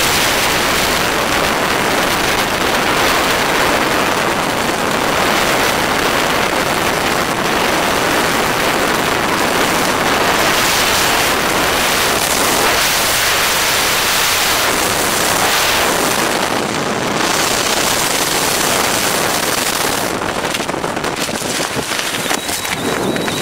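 Freefall wind rushing over a body-mounted camera's microphone: a loud, steady roar. It eases a little near the end as the parachute opens.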